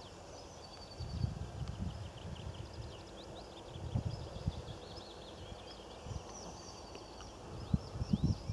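Small birds chirping and trilling, many short high calls, over low rumbling thumps that come and go a few times.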